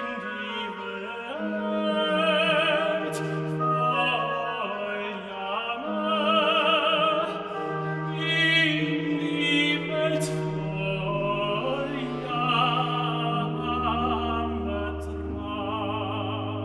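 Tenor singing a baroque cantata aria with wide vibrato, over a sustained baroque cello bass line.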